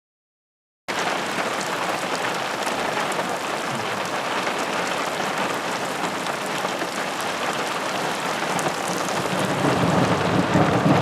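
Heavy thunderstorm rain pouring down, starting abruptly about a second in, with a low rumble of thunder building near the end.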